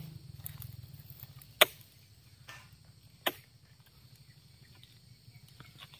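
A long-handled metal harvesting tool striking into a freshly cut oil palm fruit bunch twice, sharp chopping blows about a second and a half apart, with a few faint knocks between.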